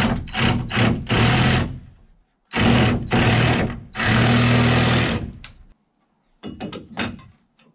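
Cordless drill driving screws into wood framing, the motor whirring in runs: a quick burst and a run of about a second and a half, a longer run of about three seconds, then a few short bursts near the end.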